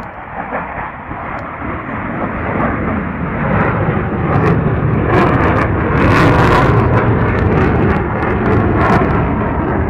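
Fighter jet flying past, its engine noise building steadily to a peak about six seconds in and staying loud.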